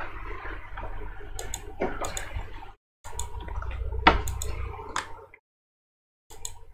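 Room noise with scattered sharp clicks and knocks. It cuts off abruptly to dead silence twice, near the middle and near the end.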